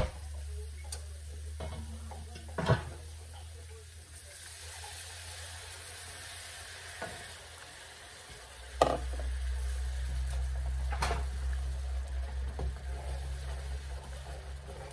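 Butter-and-flour roux sizzling in a skillet while a wooden spoon stirs and scrapes it. Chicken broth is poured in from a measuring cup partway through. A few sharp knocks of spoon or cup against the pan sound over a low steady hum that gets louder about nine seconds in.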